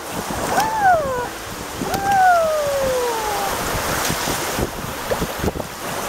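Small sea waves washing over the shallows, with wind on the microphone, and a baby's high, delighted squeals: a short rising-and-falling one about half a second in and a longer falling one about two seconds in.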